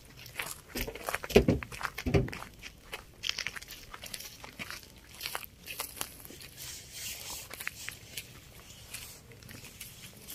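Footsteps crunching on dry grass and dirt, with irregular crackles and scuffs and two heavier thumps about a second and a half and two seconds in.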